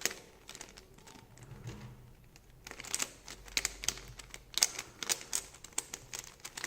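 Shengshou Mirror cube being turned by hand: its plastic layers click and clack in quick irregular clusters, sparse for the first couple of seconds and busier from about three seconds in.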